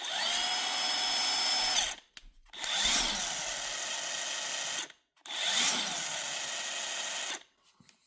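Cordless impact wrench triggered in three bursts of about two seconds each, its motor winding up quickly at the start of each run.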